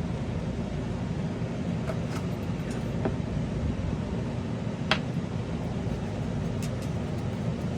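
Steady low room hum with a few light clicks and taps of small paintball-marker bolt parts being handled, the sharpest about five seconds in.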